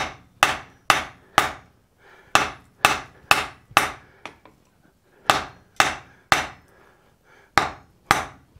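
Hand hammer blows on a glowing wrought-iron hammer blank on the anvil, about two a second in runs of three or four with short pauses, each blow ringing briefly. This is hammering at welding heat to close up the splitting, delaminating wrought iron.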